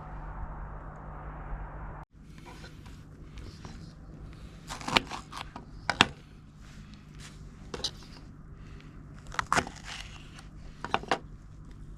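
A steady low rumble cuts off about two seconds in. Then small twigs crackle and snap, with a handful of sharp cracks over light scraping and rustling.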